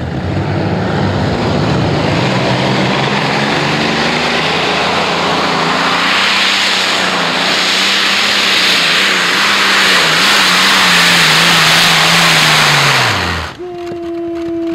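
Popeye modified pulling tractor's Allison V12 aero engines running flat out under load during a pull. The sound builds over the first couple of seconds and holds steady at full power. About thirteen seconds in, the pitch drops steeply and the engines shut off abruptly.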